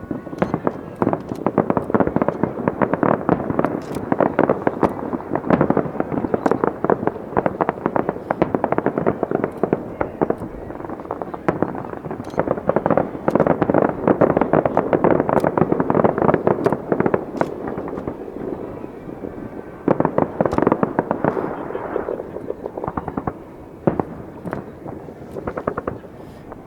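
Fireworks display: a dense, continuous barrage of bangs and crackles, many per second, heaviest about halfway through and thinning near the end.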